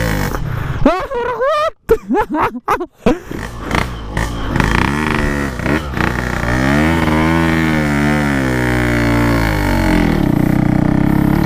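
Yamaha RX-King two-stroke single-cylinder engine labouring in first gear up a steep climb while pushing a dead scooter. The revs swell up and fall back over a few seconds, then settle to a steady drone near the end. The rider puts the strain down to weak, slipping clutch plates. The sound cuts out briefly a couple of times about two seconds in.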